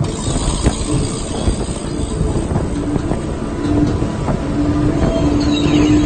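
Triple Mercury Verado 350 outboards running under way, with the rush of water and wind against the moving hull. A steady humming tone rises out of the rumble a little under halfway through and holds.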